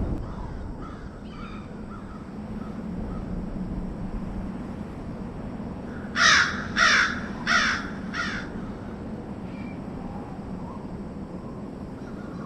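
A crow cawing: four harsh calls in quick succession about six seconds in, over a steady low background hum, with fainter calls now and then.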